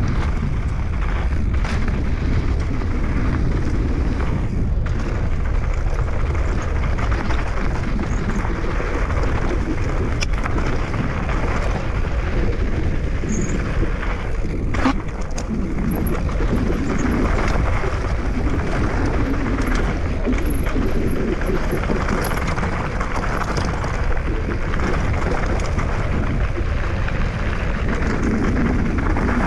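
Steady, loud rumbling noise of a vehicle in motion, going on without a break.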